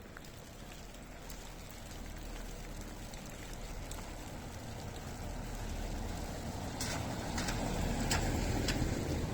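A vehicle approaching, its steady rumble and noise growing louder over several seconds. Near the end, a few footsteps sound about every half second over it.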